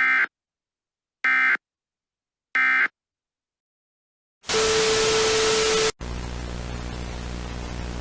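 Three short bursts of Emergency Alert System SAME data tones about a second and a quarter apart: the digital end-of-message code that closes the broadcast. About four and a half seconds in, a loud burst of harsh static with a steady low tone starts. It cuts off abruptly at about six seconds into quieter steady static with a low hum.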